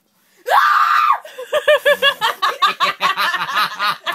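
Person laughing uncontrollably. About half a second in comes one high-pitched rising squeal, held for most of a second. It breaks into a fast run of high-pitched laughs, about five a second.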